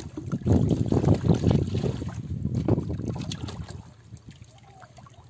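Water sloshing and splashing around a person wading chest-deep, in irregular surges that die away about four seconds in as he settles low in the water.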